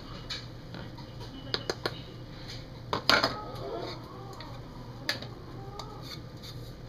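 Bowls and a utensil clinking and clattering as dry ingredients are tipped and scraped into a plastic mixing bowl: a few quick light clicks, a louder clatter about three seconds in, and another knock about five seconds in.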